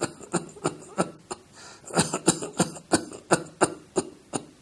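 A man giving a run of short, weak coughs without a deep breath first, about three a second with a brief break about a second in. This is the classic cough of an irritant deep in the lungs, in the interstitium or alveoli, as in pulmonary fibrosis, pulmonary edema or pneumonia.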